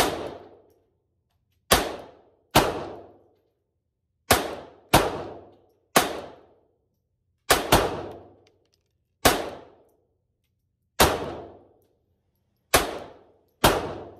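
Glock 44 .22 LR semi-automatic pistol firing about a dozen single shots at an uneven, roughly one-a-second pace, each a sharp crack with a short echoing tail. Two shots come in quick succession about halfway through.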